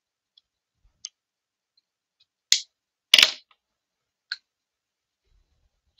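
Small objects being handled on a glass desktop: a few light clicks and taps, with a sharp click about two and a half seconds in and a louder brief clatter just after it, the loudest sound, then one more tick.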